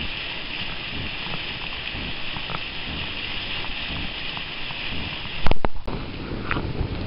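Steady hiss of steam and water from a steaming Yellowstone mud pot, with faint scattered pops. About five and a half seconds in, a sharp click and a brief dropout, then the deeper rushing of a steam vent on a lakeshore.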